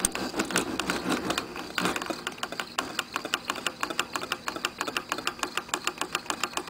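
Homemade Stirling engine fan (soup-can displacer, brass-tube piston, coat-hanger crank) running, its moving parts clicking in a steady, even rhythm of about seven clicks a second.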